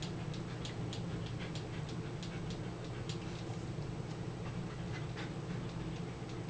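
A dog licking and smacking its mouth: irregular small clicks, several a second.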